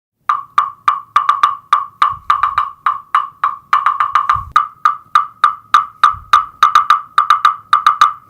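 A rhythmic run of sharp, pitched percussive clicks, about three to four a second, with a soft low thump roughly every two seconds underneath. It starts and stops abruptly.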